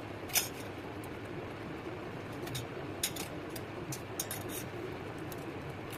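Sharp clicks and small cracks of an eggshell being tapped and broken open by hand: one stronger crack about half a second in, then a scattered run of smaller clicks midway, over a steady background hiss.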